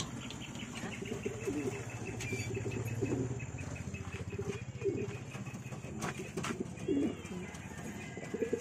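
Racing pigeons cooing repeatedly, low wavering calls, as a cock courts a hen newly put in with him for pairing. A few sharp clicks come in the second half.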